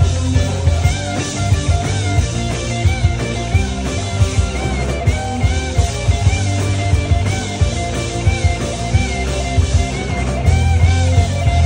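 A live rock band playing: a lead electric guitar line with repeated bent notes over rhythm guitar and a drum kit.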